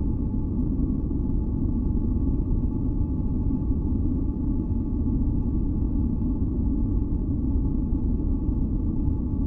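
Steady, deep rumbling noise with a few faint high tones held above it, unchanging throughout: a synthesized relaxation noise track.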